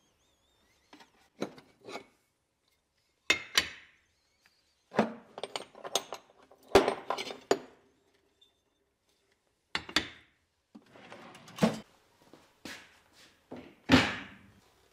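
Sheet-metal offcuts and old saw blades clinking and scraping against each other as a drawer full of them is rummaged through: a string of separate clanks with short quiet gaps, and a louder knock near the end.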